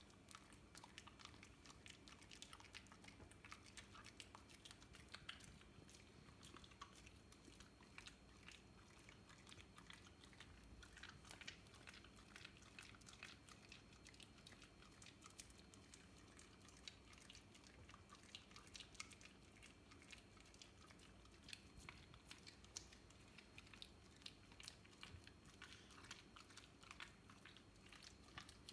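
Whippet chewing and licking sticky peanut butter: a faint, irregular run of quick, wet mouth and tongue smacks and clicks.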